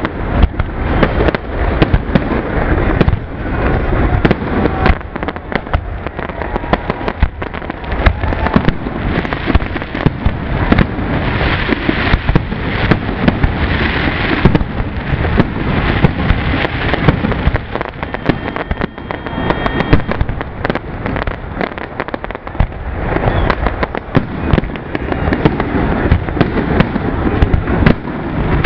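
Professional aerial fireworks display, a rapid unbroken barrage of shell bursts and launches, many sharp bangs a second overlapping one another with no pause.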